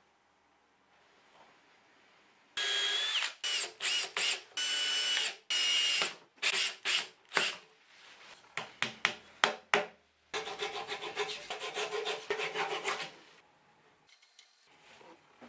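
Cordless drill driving screws into wood: a motor whine in several short bursts, then a few quick pulses and a longer rattling run of about three seconds near the end.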